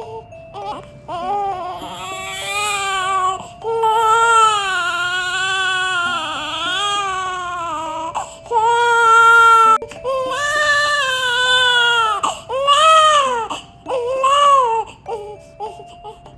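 One-day-old newborn baby crying: a string of about six long, wavering wails with short catches of breath between them, the longest lasting about four seconds.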